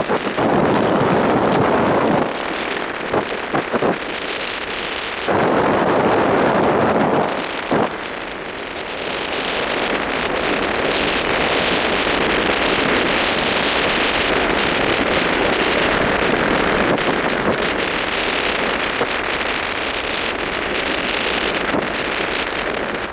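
Wind buffeting the microphone on a moving vehicle, over steady road noise. It comes in heavy gusts in the first couple of seconds and again from about five to seven seconds, then settles into a steadier rushing hiss.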